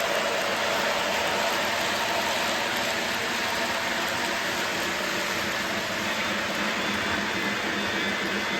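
A train's engine running with a steady drone over an even rushing noise.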